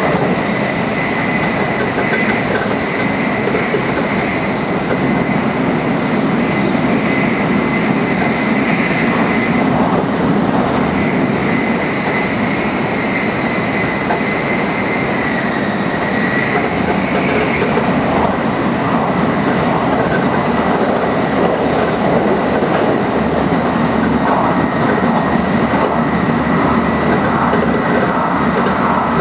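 Tokaido Shinkansen Nozomi bullet train running at high speed: a steady rushing noise with a thin high whine held at a near-constant pitch.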